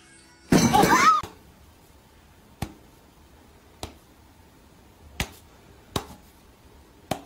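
A short, loud cry whose pitch bends up and down, about half a second in. Then five sharp taps about a second apart: a cat's paw swatting at the phone filming it.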